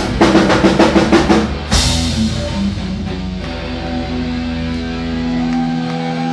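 Rock band finishing a song: a fast drum fill, a final crash about two seconds in, then a held guitar chord ringing on and slowly fading.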